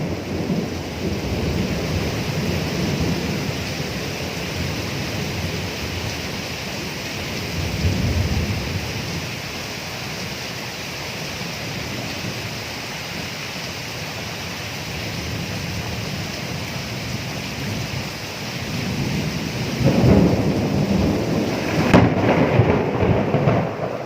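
Steady rain in a thunderstorm with rolling thunder. Low rumbles swell a few times, and the loudest peal comes near the end with a sharp crack.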